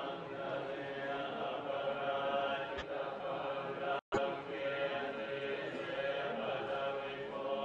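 A group of voices chanting Tibetan Buddhist prayers in unison, held on steady notes. The sound cuts out for a split second about four seconds in.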